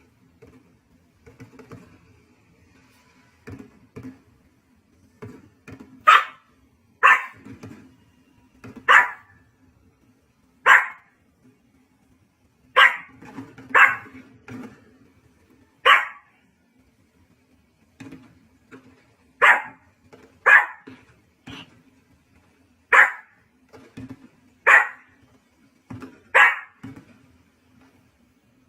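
A dog barking in single sharp barks, one every second or two, after a quieter opening few seconds; a faint low hum runs underneath.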